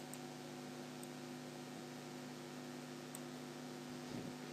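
Steady low electrical hum with hiss: the background noise of the narrator's recording, with a few faint ticks.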